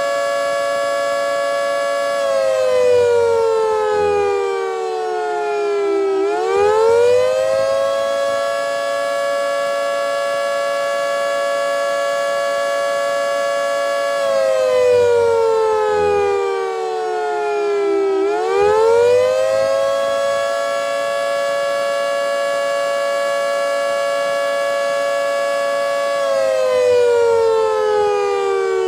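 Federal Signal 3T22A electromechanical tornado warning siren sounding a two-note chord. The pitch holds, slides down over about four seconds and swings quickly back up, twice, then starts falling again near the end, while the loudness swells and fades.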